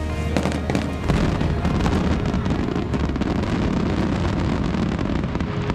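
Aerial fireworks bursting, then a dense crackle of sparkling stars that thickens about a second in, with background music underneath.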